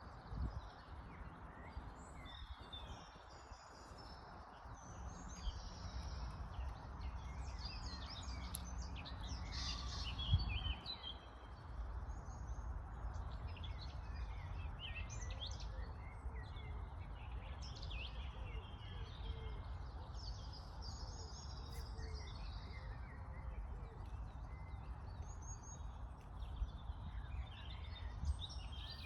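Several wild birds chirping and singing, many short calls and trills overlapping, over a steady low rumble. The rumble briefly swells near the middle.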